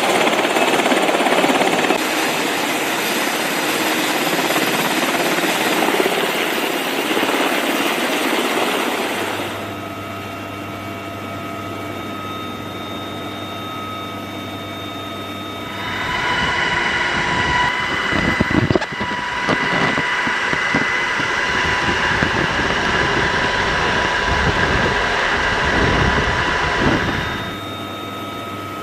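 Helicopter engine and rotor noise with a steady high whine, cut between shots: quieter from about a third of the way in, loud again past the middle with a couple of sharp knocks, and quieter again near the end.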